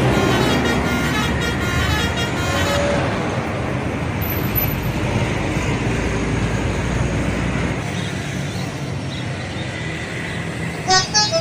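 Bus telolet horn playing a rapid tune of short notes that fades out about three seconds in, followed by bus engine and road traffic noise with a deep rumble. A new burst of telolet horn notes begins just before the end.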